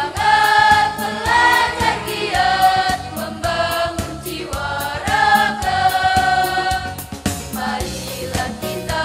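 School choir of boys' and girls' voices singing together in long held notes that change about every second, over a steady quick beat of about four ticks a second.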